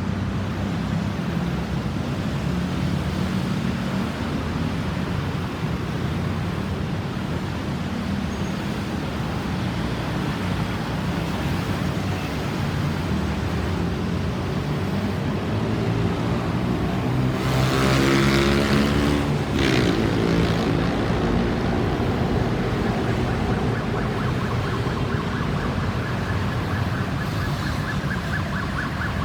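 Road traffic running past steadily, with one vehicle passing close about two-thirds of the way through. An emergency vehicle's siren comes in faintly with a fast warble near the end.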